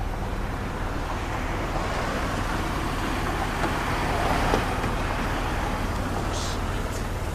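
Road traffic on a busy multi-lane street: a steady rush of passing cars, swelling as one vehicle goes by about four to five seconds in, then easing.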